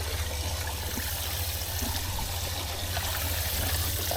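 Steady wash of water with a low rumble underneath and a few faint ticks.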